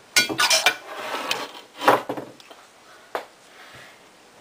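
A few sharp metal clicks with a short rasp among them, from a zippo-style lighter being handled, with one more click about three seconds in.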